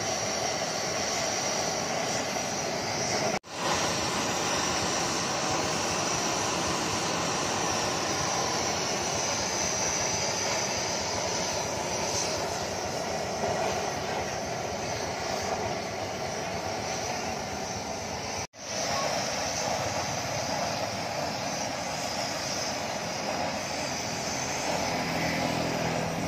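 Gas blowtorch flame burning steadily against a steel crucible, a constant rushing noise, cut off for an instant twice.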